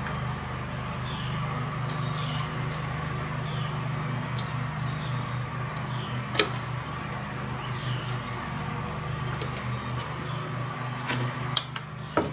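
A few sharp metallic clicks as the mechatronic unit is worked gently into a VW transmission over its guide pins, over a steady low hum. Short high chirps that fall in pitch repeat about once a second behind it.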